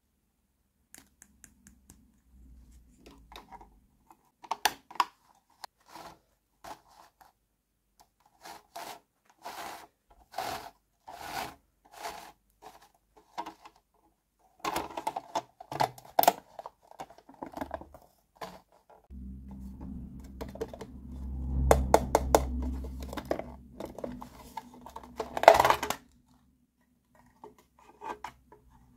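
Hard plastic toy-house pieces being handled: a string of separate clicks, taps and snaps as parts are fitted and the hinged walls and roof are moved. Past the middle comes a longer stretch of rubbing and scraping with rapid clicks, ending in one loud snap.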